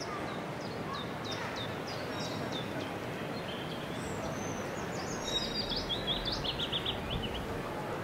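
Birdsong sound effect: birds chirping and whistling, with a quick run of rapid repeated notes about five seconds in, over the steady background noise of a busy station concourse.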